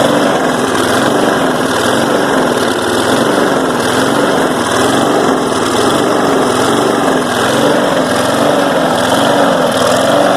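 Four-stroke push mower engine running with no oil in the crankcase, hunting badly: its speed surges up and down about once a second. The owner thinks he may have put too much dirt in the intake.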